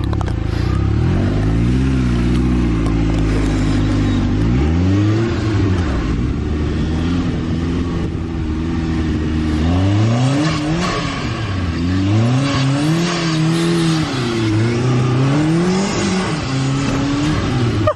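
Turbocharged side-by-side UTV engine revving hard under wheelspin, its pitch climbing and dropping again and again as the throttle is worked through slides; the swings come faster, about one a second, in the second half.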